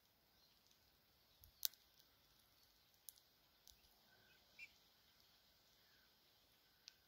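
Near silence broken by a few sharp little clicks, the loudest about a second and a half in: a male Eurasian bullfinch cracking sunflower seed husks in its beak. A brief faint whistle comes about halfway through.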